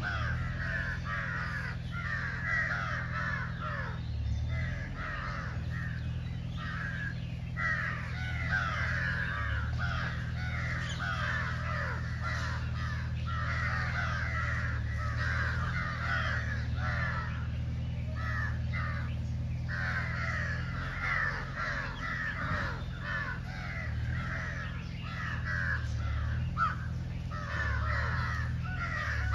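Many birds calling at once in a dense, overlapping chatter, over a steady low hum.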